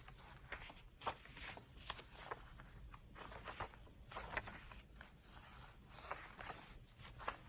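Paper pages of a thick handmade journal being turned and handled: faint, irregular rustling and scraping strokes.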